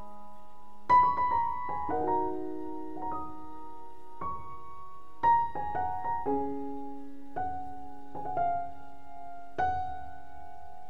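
Slow background piano music: single notes and chords struck about a second apart and left to ring.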